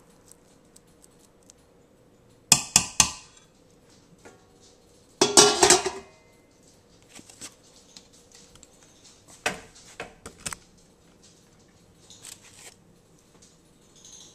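Metal serving spoon and enamelware pot lid clanking against cookware while food is dished out. Four quick knocks come about 2.5 s in, then a louder clatter at about 5 s, more knocks around 10 s, and faint clinks near the end.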